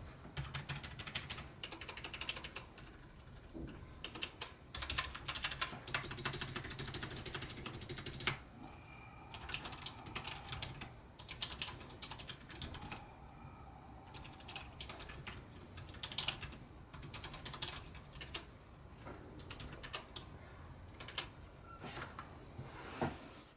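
Typing on a Logitech MK235 wireless keyboard's membrane keys: fast runs of soft clacking keystrokes, broken by short pauses.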